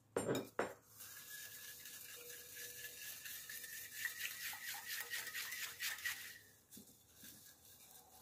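A metal spoon stirring pickling brine in a glass bowl, scraping and clinking quickly against the glass to dissolve the salt and sugar. Two sharp clinks open it, then the brisk stirring runs for about five seconds and stops.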